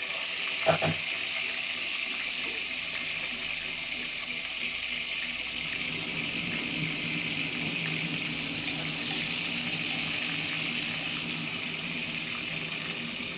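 Onions frying in hot oil in a pan, sizzling steadily, with a single knock about a second in.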